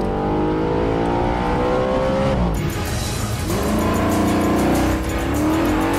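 Audi RS 5 Cabriolet's 4.2-litre FSI V8 accelerating hard through the gears. Its note climbs steadily, drops at an upshift about two and a half seconds in and again near the end, and climbs again each time.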